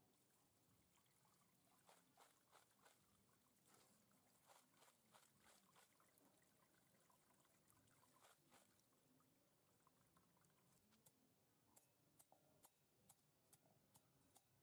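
Very faint water trickling and dripping as freshly washed crabs are handled and drained in a plastic colander, with scattered light clicks that become sharper and more regular near the end.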